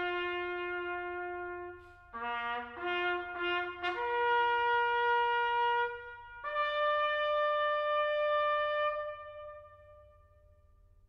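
A bugle call played on a single brass instrument: a long held note, a short break, then quick notes rising step by step through the bugle's natural notes to a long higher note, and a final highest note held for a few seconds before it fades away.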